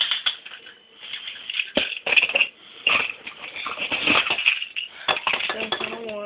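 Plastic toy trains being handled and knocked about, with scattered clicks, knocks and rustling. A short pitched whine comes near the end.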